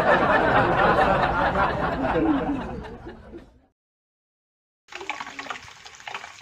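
A dense burst of laughter-like voices that cuts off abruptly about three and a half seconds in, followed by a second of dead silence. Then quail eggs sizzle and crackle in hot oil in a wok as they are turned with chopsticks.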